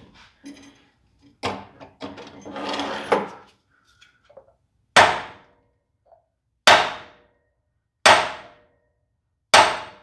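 A hand sledge strikes a galvanized steel pipe coupling sitting on a piston of a seized engine: four sharp, ringing metal blows about a second and a half apart, starting about halfway in, after some lighter clanking and rattling. Each hit-and-stop blow shock-loads the stuck piston to break it free in its crusted cylinder.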